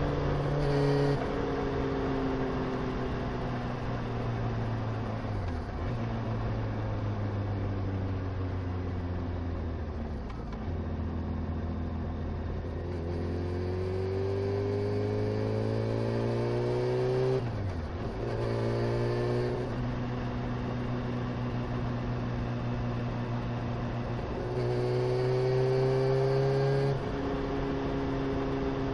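Honda CBR motorcycle engine running under way. Its pitch climbs as it accelerates, then drops at several gear changes, with a sharp shift about two-thirds of the way through.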